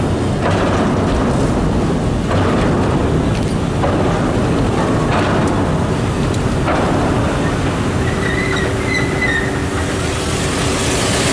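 FS E.428 electric locomotive rolling slowly past with a loud, steady rumble. Its wheels knock over rail joints about every second and a half, and a brief thin squeal comes near the end.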